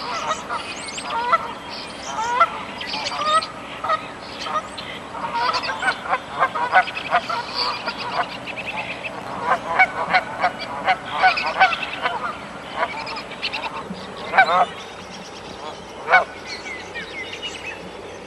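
Canada geese honking, many short calls from several birds overlapping, busiest in the middle, then a few loud single honks toward the end.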